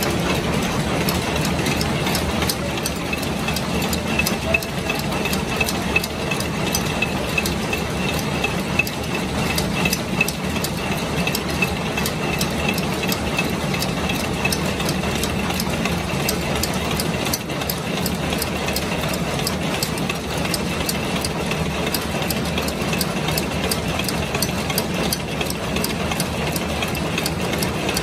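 Screw thread-rolling machine running, fed from a hopper of screw blanks: a steady, fast rattling and clicking of blanks and moving parts over the hum of the belt-driven drive.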